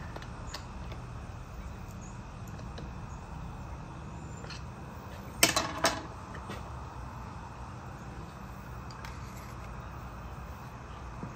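Metal tools and engine parts clinking as they are handled on a cluttered workbench: a short run of three sharp clinks about halfway through, with a few faint ticks elsewhere, over a steady low background hum.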